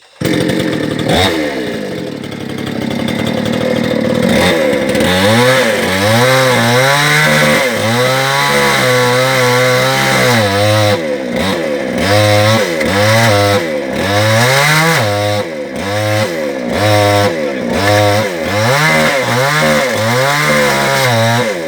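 Two-stroke chainsaw running and being revved up and down again and again, about once a second, as it cuts wood.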